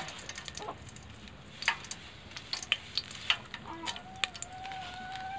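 Mustard seeds dropped into hot oil in an aluminium pot, sizzling with scattered sharp pops and crackles as they temper. A long steady tone runs through the last second and a half.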